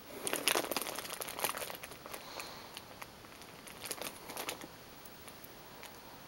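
Crinkling of the gummy bears' packaging in two handlings: a dense crackle for the first two seconds, then a shorter one about four seconds in.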